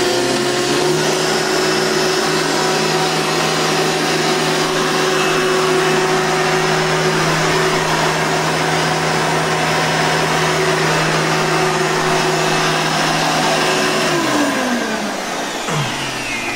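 Hoover Elite soft-bag upright vacuum cleaner running with a steady motor whine, then switched off about 14 seconds in, its motor spinning down with falling pitch.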